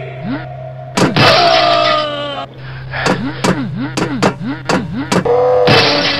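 Edited-in comedy sound effects: a sharp hit about a second in with a wavering tone after it, then a quick run of about six sharp clicks, each with a short rising-and-falling blip, over a steady low hum.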